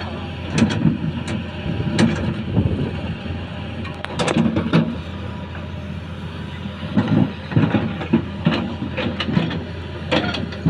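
Excavator's diesel engine running steadily, with repeated sharp knocks and clanks of its bucket working large rocks.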